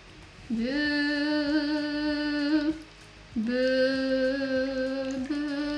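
A woman humming long held notes, three in a row, each sliding up in pitch at its start and then holding steady.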